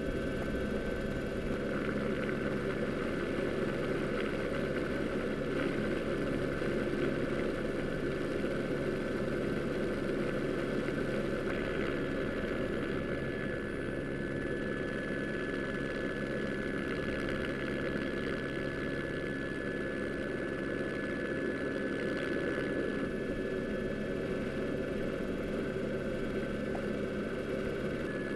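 Steady drone of a helicopter's turbine engine and rotor with a constant high whine, unchanged throughout, heard from on board the aircraft.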